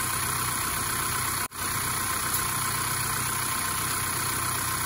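Honda CR-V's EarthDreams engine idling steadily, just fitted with four new spark plugs to cure a misfiring, rough run; the owner finds it now sounds good. The sound drops out for an instant about a second and a half in.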